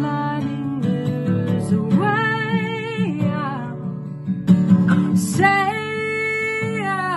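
Solo female voice singing over a strummed acoustic guitar. The voice holds two long wordless notes, the second sliding down near the end.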